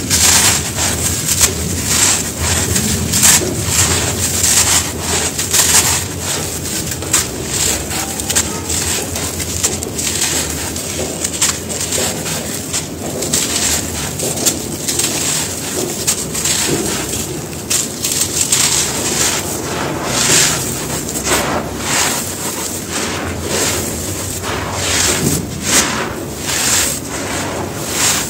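Hands crushing and crumbling dry, dusty cement shapes: a dense, continuous run of sharp gritty crunches and crackles, with loose powder sifting and pouring through the fingers.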